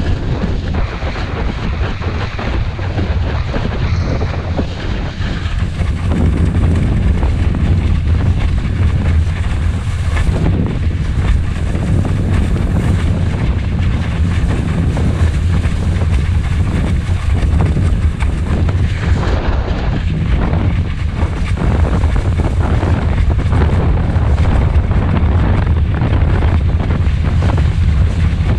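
Wind buffeting the microphone of a helmet-mounted action camera, over the rush and spray of a windsurf board planing across choppy water. Steady and loud, a little louder from about six seconds in.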